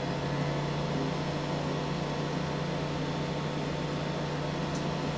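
300 W Quiet Cut spindle motor running steadily with no load, a Torx wrench chucked in its collet: an even hum with a strong low tone over a light hiss. It is running on an M4 counterclockwise command but still turning clockwise.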